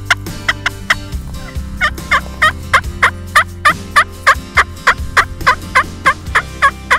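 A hand-worked wooden turkey call giving a fast, even run of short turkey yelps, each note falling in pitch. It starts sparse, then settles to about three a second from about two seconds in.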